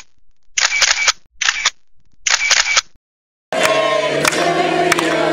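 A camera-shutter sound effect in three quick bursts. About three and a half seconds in, the noise of a party crowd with music cuts in suddenly.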